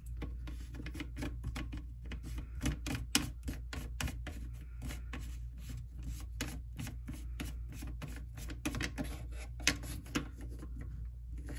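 Plastic slip-joint nut on a sink drain tailpiece being unscrewed by hand, its threads giving an irregular run of small clicks and rubs.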